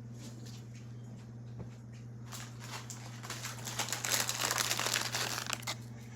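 Crinkling rustle, as of something crumpled in the hands. It starts about two seconds in, grows loudest in the second half and stops shortly before the end, over a steady low hum.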